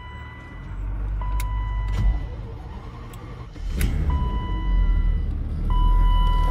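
BMW E32 750iL's V12 being started: the starter cranks and the engine catches a little before four seconds in, then runs steadily. A steady electronic warning beep sounds on and off three times over it.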